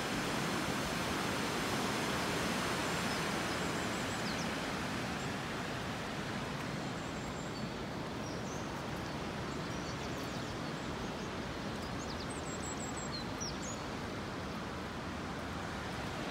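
Steady rush of river water flowing past a stone bridge, an even hiss with no breaks. Small birds chirp faintly now and then above it, several times in quick succession about three-quarters of the way through.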